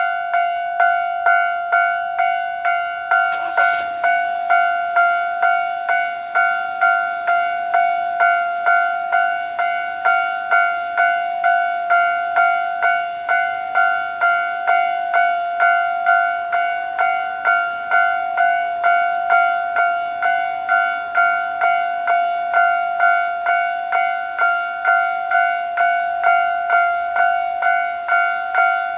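Japanese railway level-crossing alarm sounding its rapid 'kan-kan-kan' warning: one ringing tone struck over and over at an even, quick rhythm without a break.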